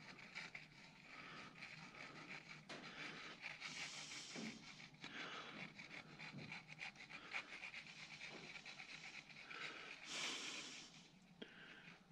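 Quiet, heavy breathing close to the microphone, with two louder breaths, one about four seconds in and one about ten seconds in.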